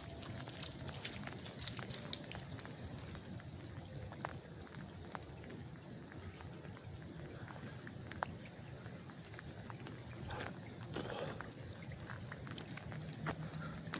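Freezing rain falling, with many scattered, irregular sharp ticks of drops and bits of ice landing on ice-coated surfaces.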